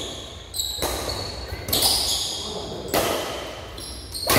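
Badminton rally: rackets strike the shuttlecock four times, about a second apart. Each hit is sharp and rings on with an echo in a large hall.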